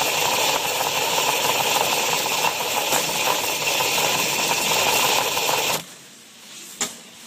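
Small electric drive motors and gearboxes of a hobby robot running with a steady rattling whir, close on its metal chassis; they cut off suddenly about six seconds in, followed by a single sharp click a second later.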